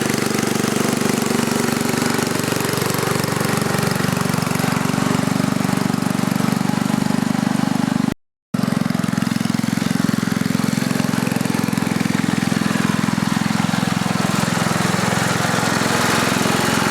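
Small engine of a restored 1950s Standard (Bantam) garden tractor running steadily with a rapid, even chugging beat. About halfway through the sound cuts out for a fraction of a second, then resumes unchanged.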